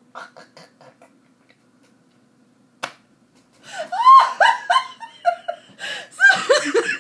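A woman laughing, first in faint breathy pulses, then after a single sharp slap a little before the middle, in loud, high, broken peals of laughter.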